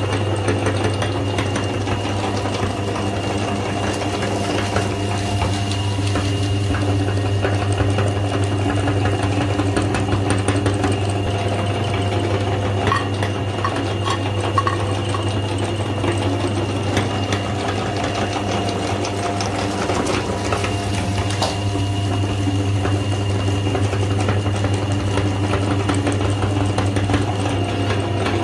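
Electric motor running with a steady, unbroken hum. A few faint clicks lie over it.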